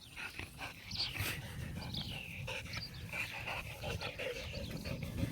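Dogs panting, with a few faint high whines.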